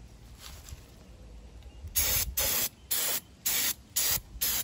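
Aerosol can of carburetor and choke cleaner sprayed in about six short bursts onto a four-barrel carburetor, starting about two seconds in.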